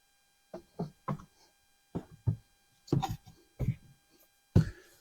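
A series of short knocks and taps, about eight in five seconds with gaps between them: the air filter housing lid being handled and pressed down onto the air box.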